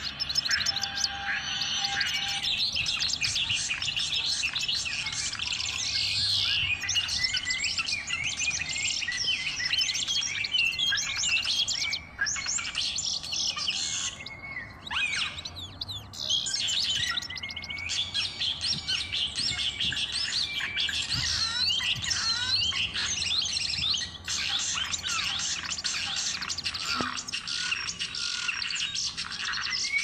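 Budgerigars chattering and warbling: a continuous stream of fast, overlapping chirps and whistles, with a few brief pauses.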